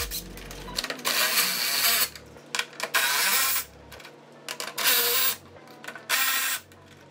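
Milwaukee cordless ratchet spinning 10 mm bolts out of bumper trim, running in four short bursts of under a second each with pauses between them.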